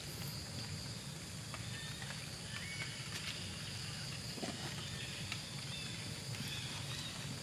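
Steady outdoor background noise with a few short, high chirps or squeaks scattered through it and faint ticks.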